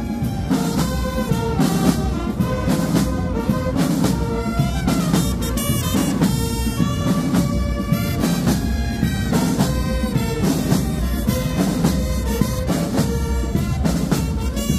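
Marching band playing on the move: brass instruments carry a melody over a steady beat of marching drums.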